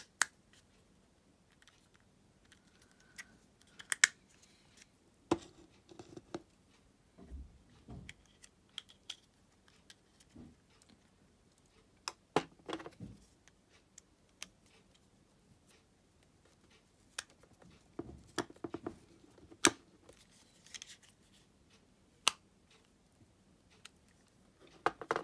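Hard plastic parts of a car key fob shell clicking and tapping as they are handled and pressed together by hand. A handful of sharp clicks a few seconds apart, with faint rubbing and handling noise between them.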